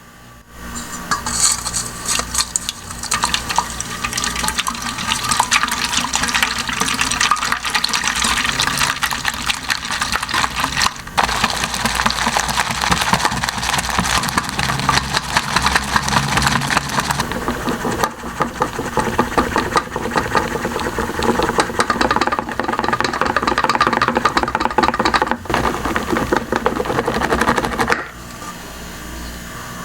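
Eggs being whisked hard in a bowl for a soufflé omelette: a loud, dense, fast rattle of beating that runs on without a break and stops abruptly near the end.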